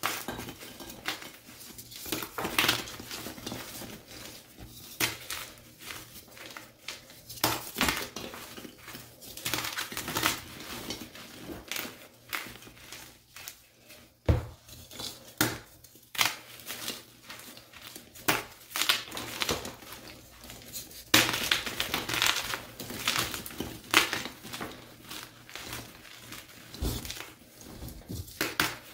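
Blocks of gym chalk, plain and dyed, crushed and crumbled between the hands: irregular crisp crunches with gritty crumbling, coming thickest about two-thirds of the way through.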